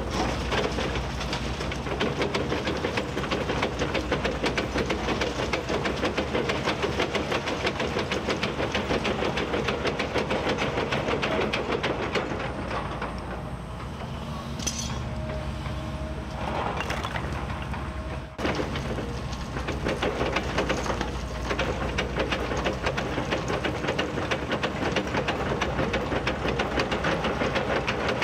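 Kobelco SK 260-10 crawler excavator working: its diesel engine runs under load with a fast, continuous metallic rattle. The sound eases off for a few seconds a little past halfway and drops out for an instant before picking up again.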